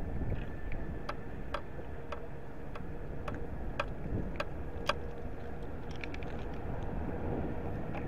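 Wind rumbling on the microphone on an open railway platform, with a string of sharp ticks about two a second and a faint steady high hum.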